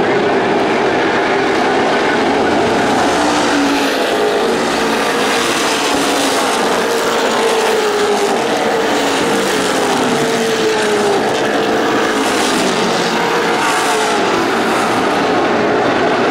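NASCAR Late Model stock cars' V8 engines running hard on track, their pitch rising and falling as the cars go through the turns and down the straight.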